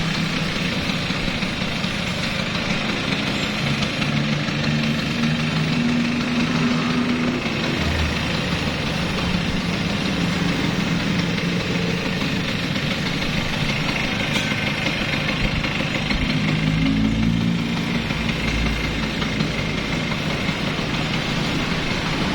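2003 Vespa Exclusive 2 scooter's two-stroke single-cylinder engine idling.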